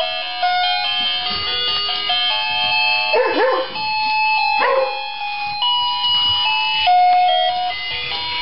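A tinkling tune of bell-like notes plays throughout, and a dog barks twice, about three seconds in and again a second and a half later.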